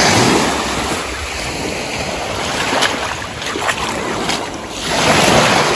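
Small waves breaking and washing up a pebble beach, surging at the start and again about five seconds in, with wind buffeting the microphone.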